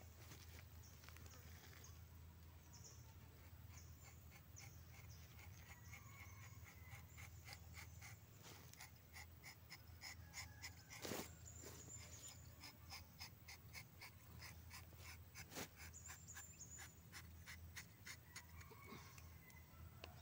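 Faint rapid clicking and scraping of a rubber-tapping knife shaving a thin strip of bark along the tapping cut of a rubber tree, with two louder clicks midway. A few faint bird chirps and a low steady hum lie underneath.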